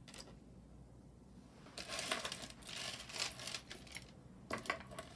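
Small metal costume-jewelry pieces clinking and rustling as they are handled, for about two seconds starting a couple of seconds in, followed by a few light clicks near the end.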